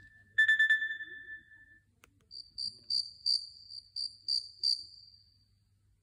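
Preloaded ringtones playing from a Lenovo TD16 mobile phone's speaker: a short pulsing electronic beep tone that fades out, then after a pause a higher electronic tone pulsed about three times a second that fades away near the end.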